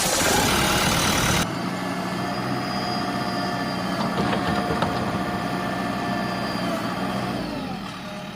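Heavy diesel machinery engine running, louder and rougher for about the first second and a half, then settling to a steady run with a few light clicks.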